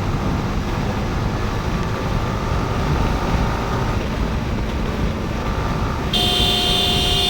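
Yamaha R15 V4's 155 cc single-cylinder engine running under way, with steady wind and road noise on the rider's camera. About six seconds in, a vehicle horn sounds one steady blast of about a second.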